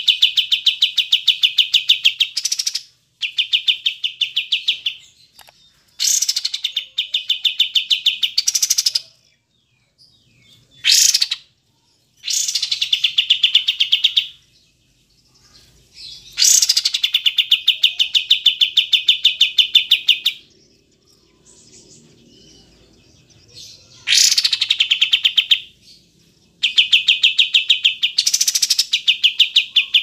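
A caged kapas tembak, a crested bulbul, singing loud, fast chattering trills in phrases of a few seconds each, many of them opening with a sharp high note, with short pauses between phrases.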